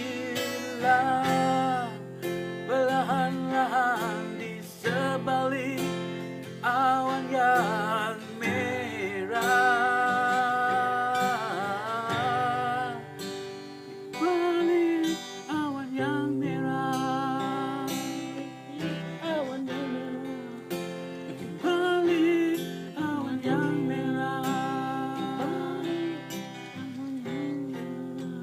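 Unplugged acoustic band music: acoustic guitar strumming chords under a wavering melody line, in an instrumental stretch without sung words.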